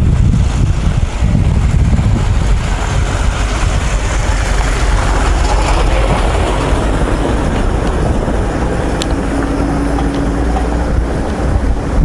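Wind rumbling on the microphone, mixed with a car's engine and tyres on a dirt road as a red Lada Niva drives up and passes close by about halfway through.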